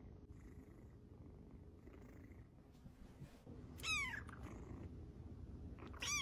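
A kitten purring steadily, then two short high meows that fall in pitch, one about four seconds in and one at the very end: the kitten protesting because the petting has stopped.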